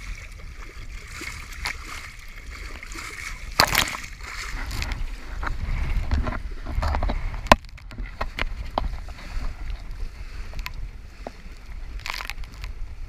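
Choppy water sloshing and splashing against the hull of a small Mewa sailboat under sail, with wind rumbling on the microphone. Sharp splashes or knocks break through now and then, the loudest about 3.5 s and 7.5 s in.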